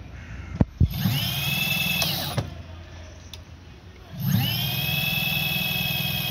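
A small electric motor whirring at a steady pitch in two runs: a short one of about a second and a half, then a longer one starting about four seconds in.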